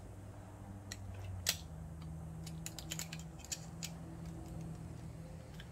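Sharp metal clicks and clacks of cable ends and alligator clips being handled on a deep-cycle battery's terminals: one louder click about a second and a half in, then a cluster of lighter clicks. A low steady hum runs underneath.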